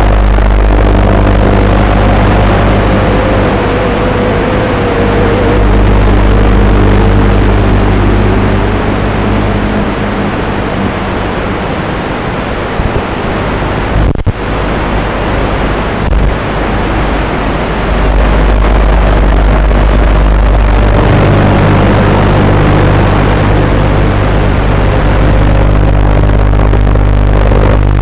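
Motors and propellers of a 90 mm FPV racing quadcopter running in flight, a steady buzz with a whine that rises and falls with the throttle. The sound drops back for several seconds in the middle, with a sharp click about halfway.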